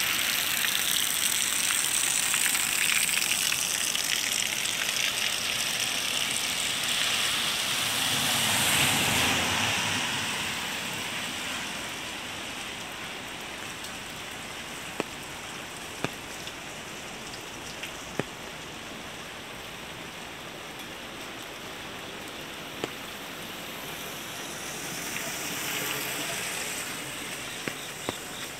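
Rain falling on a wet street: a steady hiss, heavier for the first ten seconds or so, then lighter, with a few sharp taps in the second half.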